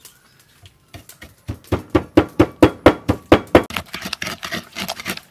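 Wooden pestle pounding a wet chili, garlic and salt paste in a clay mortar: steady strikes about four a second, starting about a second in, then lighter and quicker strokes near the end.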